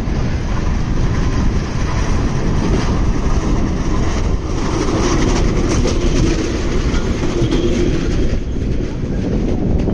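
A vintage tramcar passing close by on wet track: a steady low rumble, with the wheels clacking over rail joints, loudest around the middle as the car goes by.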